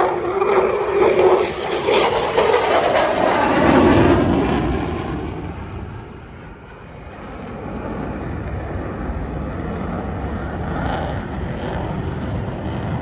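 Aircraft engine noise, loud with a high hiss for the first few seconds, dropping off about six seconds in, then a steady low rumble.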